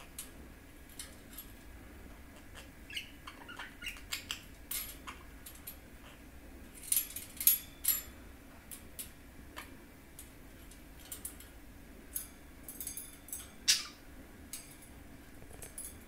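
Budgerigar pecking and tapping its beak against a small metal bell toy, making scattered sharp clicks, loudest in a cluster about seven seconds in and once about two seconds before the end. Between the taps come soft, short chirps of budgie chatter.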